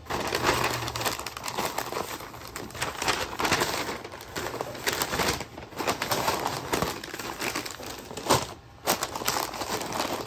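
Butcher paper being folded and crinkled by hand around a smoked pork butt in crumpled aluminium foil: continuous rustling and crackling of paper and foil. A sharp knock sounds near the end.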